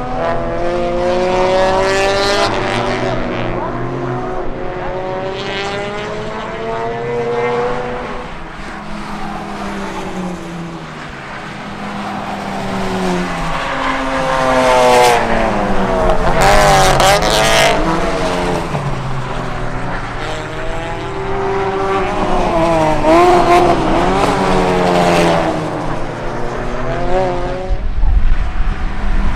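Several race cars driving through a corner one after another. Their engine notes rise and fall and overlap as each car passes. The loudest pass comes about halfway through, and another loud one comes near the end.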